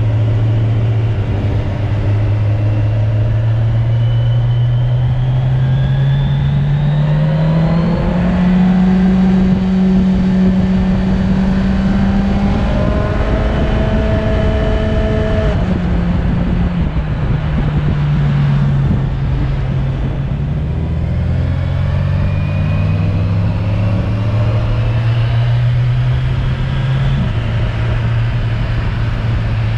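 Kawasaki inline-four motorcycle engine under way, with steady noise underneath: its pitch climbs over the first several seconds, holds, falls back past the middle, then climbs again and drops near the end.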